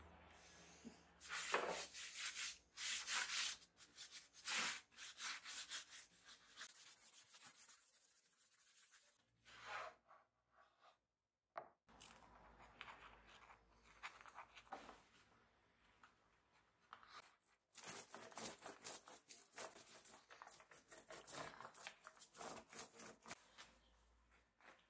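Cloth rubbed by hand over a bare pine board in quick back-and-forth strokes. It comes in two main spells, one near the start and one in the last third, with a brief silence near the middle.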